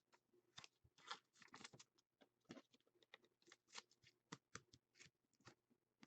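Near silence with faint, scattered light clicks and rustles of trading cards being handled and slid on a table.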